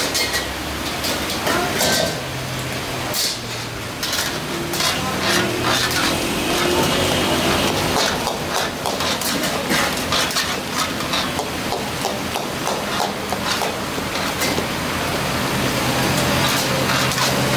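Mutton and tomatoes frying in a metal karahi wok over a gas flame, with repeated clinks and scrapes of a metal ladle stirring against the pan over a steady hiss.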